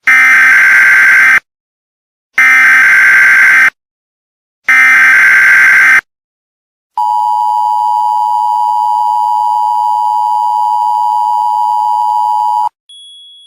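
Emergency Alert System tones: three identical bursts of shrill digital data tones (the SAME header), then after a short pause the two-tone attention signal held steady for about six seconds. A fainter, single high tone starts near the end.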